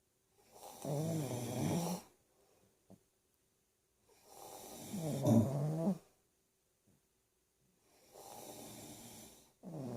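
Loud, pitched snoring in long, separate breaths, about one every four seconds: two strong snores, then a softer one followed at once by another louder one near the end.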